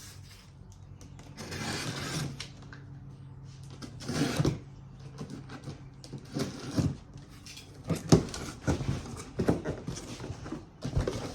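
A cardboard shipping box being opened by hand. A short rustle of noise comes about two seconds in, followed by a run of irregular knocks and rustles as the flaps and packing are handled.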